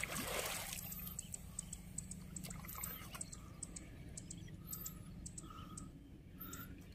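Water splashing briefly at first, then faint trickling and dripping, with many short, high-pitched chirps repeating throughout.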